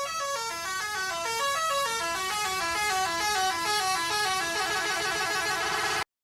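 A musical horn playing a quick tune, about four buzzy stepped notes a second, cutting off suddenly near the end.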